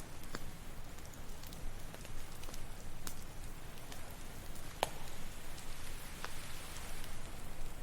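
Campfire crackling with scattered sharp pops over the steady wash of ocean waves; a wave's hiss swells up after about five seconds.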